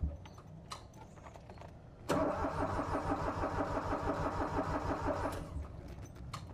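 The mini excavator's Yanmar three-cylinder diesel turns over for about three seconds, then stops. A few clicks and knocks come before it and near the end.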